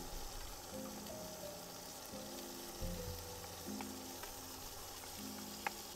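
Shell-on shrimp and garlic sizzling in hot oil in a frying pan, with a steady hiss and a few light clicks in the second half.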